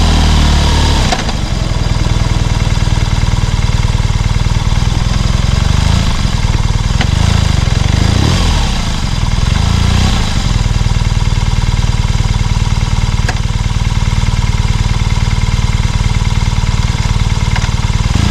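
BMW R nineT's boxer-twin engine idling. Its revs fall away over the first second, then it idles steadily, with a few throttle blips in the middle.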